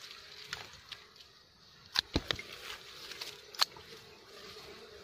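Dwarf honey bees (Apis florea) buzzing faintly and steadily around their nest, with a few sharp clicks, the loudest a cluster about two seconds in and another a little after three and a half seconds.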